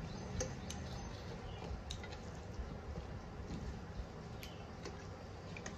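Wet chewing and lip-smacking of people eating rice and curry with their hands, with a scattering of short wet clicks.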